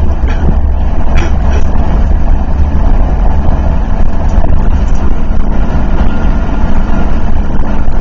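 Motorhome cruising at freeway speed, heard from inside the cab: a steady low drone of engine and road noise, with a few faint clicks in the first two seconds.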